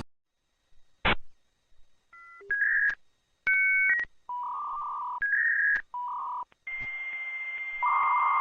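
A sharp click, then a run of short electronic beep tones, several sounding as two-note pairs like telephone dialing tones, each lasting about half a second with short gaps. The beeps give way to a long steady tone, and a louder second tone joins it near the end.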